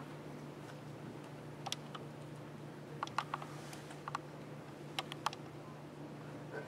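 A quiet, darkened hall with a steady low hum, broken by a handful of light clicks and knocks, some in quick pairs or small clusters.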